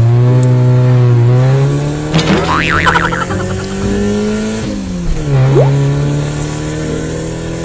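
A car engine revving sound: the pitch climbs slowly, falls away about four and a half seconds in, then climbs again. A brief scratchy, higher sound rides on top around two and a half to three seconds in.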